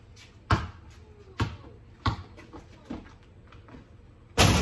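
Basketball dribbled on a concrete slab: a few separate bounces about a second apart, then a louder, longer hit near the end.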